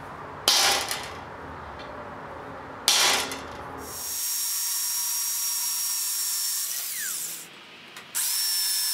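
Two sharp hammer blows on a center punch, marking hole centers on steel square tubing. Then a hand drill bores a 3/16-inch pilot hole through the steel tube, running with a steady high whine that stops briefly and starts again near the end.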